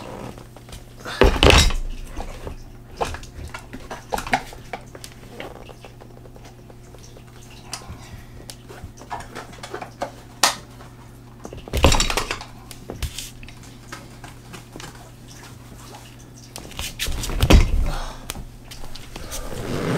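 Knocks and clatters from a newly assembled Secretlab Omega gaming chair being handled and set upright. There are three louder clattering knocks, about a second in, about halfway through and near the end, with light clicks in between.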